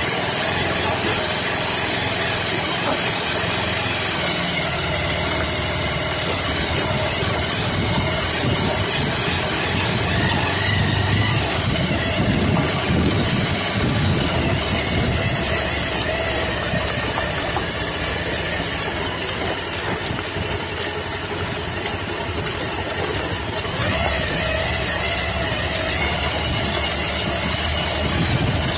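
Motorcycle engine running steadily while riding over a rough dirt track, with a constant rush of wind and road noise.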